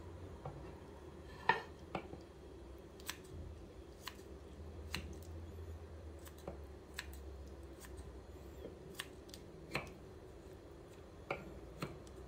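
Kitchen scissors snipping through cold morcilla blood sausage: a sharp click with each cut, irregular, roughly once a second, the loudest about one and a half seconds in.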